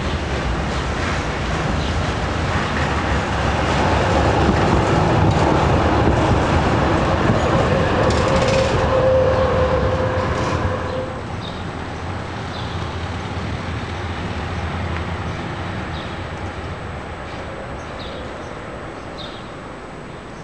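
A tram running along street track, growing louder to a peak about a third of the way in, with a steady whine for a few seconds near the middle. The sound drops suddenly a little past halfway and then slowly fades.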